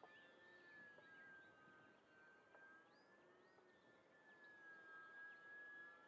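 Faint, high whine of the E-flite UMX Waco's small electric motor and propeller flying far overhead, its pitch wavering slightly and swelling a little about five seconds in.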